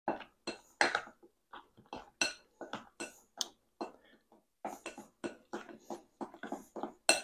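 A spoon stirring thick cornmeal batter in a glass mixing bowl: a quick, uneven run of wet scrapes and knocks against the glass, about three a second.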